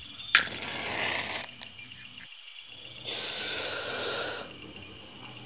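Cigarette being lit: a sharp strike followed by about a second of flaring hiss, then a long breathy exhale of smoke starting about three seconds in.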